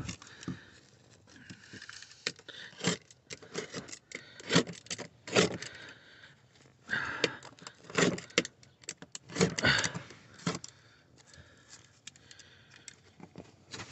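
Utility knife cutting through car floor carpet and its felt padding, with rustling and tearing as the padding is worked loose: irregular short strokes, some in quick runs.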